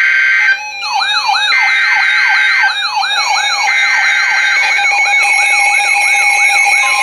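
Electronic alert tones: a steady high beep, then a fast yelp-style siren sweeping up and down about three times a second over held alarm tones.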